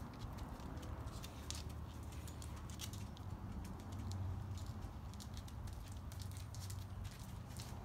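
Tortoise walking on concrete: its claws tap and scrape in light, irregular clicks over a faint low rumble.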